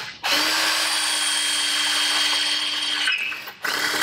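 Cordless drill with a 6 mm bit boring dry through an outboard's aluminium anti-ventilation plate. A brief burst comes first, then a steady run at an even pitch for nearly three seconds. It stops, and the drill starts again near the end.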